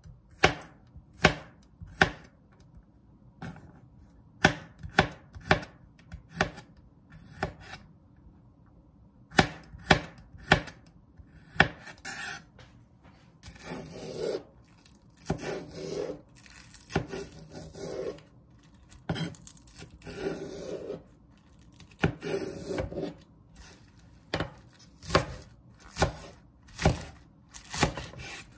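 Chef's knife chopping garlic cloves and small green onions (jjokpa) on a cutting board, each cut ending in a sharp knock of the blade on the board. Slow single chops at first, denser cutting and scraping in the middle, then a steady run of chops about one every half second near the end.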